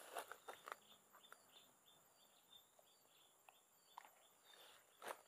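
Near silence: a faint run of short high chirps from forest wildlife, repeating about three times a second, with a few soft rustles and clicks of leaves and handling, the loudest near the end.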